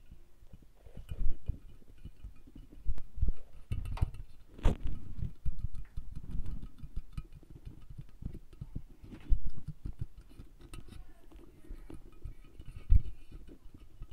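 ASMR tapping and handling on a glossy ceramic unicorn figurine: irregular soft taps, rubs and low handling thumps, with a sharper click about five seconds in.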